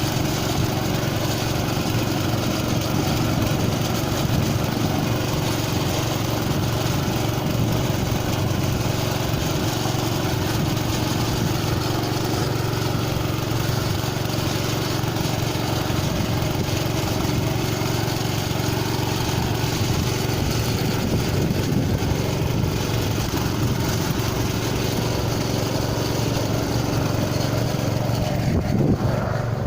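Small engine of a single-wheel walk-behind plough (plantir) running steadily.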